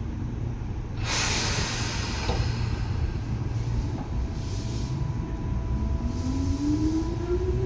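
Tobu 9000-series electric train heard from inside a car: over a steady low rumble, air hisses about a second in and fades, then a whine rises steadily in pitch from near the end as the train pulls away and gathers speed.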